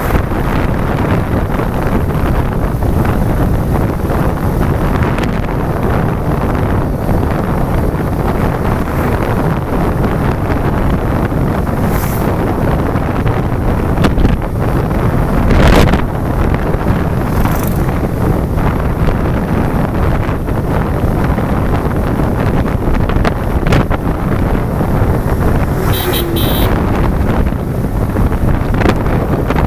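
Wind rushing over the microphone of a moving motorcycle: a steady, heavy low rumble that covers the engine, with a few short louder bursts.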